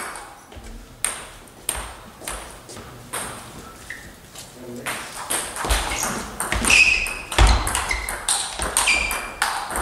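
Table tennis ball clicking off the rackets and bouncing on the table: a few single clicks at first, then a quick rally from about halfway.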